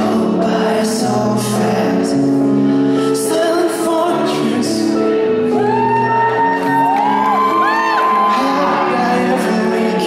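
Live performance of a slow pop song: a male lead singer over sustained keyboard chords, with gliding, arching high notes in the second half.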